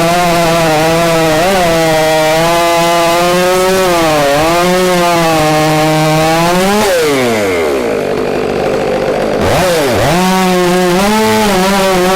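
Stihl MS 500i chainsaw running at full throttle, cutting through an oak log, its pitch dipping briefly under load. About seven seconds in, the revs fall away for a couple of seconds, then the saw revs back up sharply and carries on cutting.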